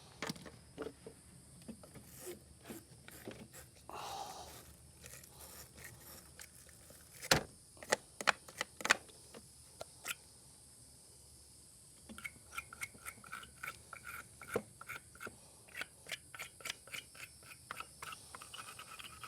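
Corroded battery cable end being scraped clean by hand: faint scattered scraping and clicks, a few sharp metallic clicks around the middle, then a run of rapid back-and-forth scraping strokes, several a second, through the last part.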